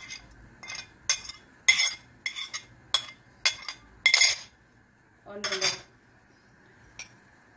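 Steel spoon clinking and scraping against a plate, about eight sharp clinks at roughly two a second as paste is knocked off into the pot. A longer, lower knock follows about five and a half seconds in, then a single small click near the end.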